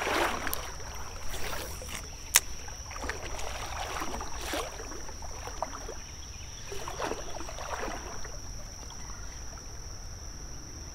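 Shallow creek water sloshing and splashing in several short swishes, over a steady high insect buzz. There is one sharp click about two seconds in.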